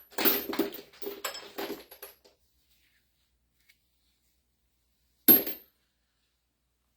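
Metal sockets clinking and rattling against each other for about two seconds, as they are sorted through in a toolkit, then one sharp metallic clack about five seconds in.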